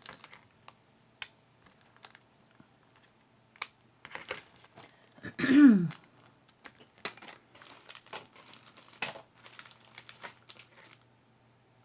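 Small jewelry items and their packaging being handled: scattered light clicks and crinkling rustles. About halfway through there is a brief voice-like sound that falls in pitch.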